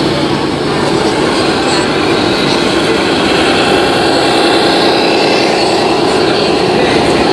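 1/14 scale RC tractor trucks driving past close by, with a loud, steady engine-like drone that grows slightly louder about three seconds in.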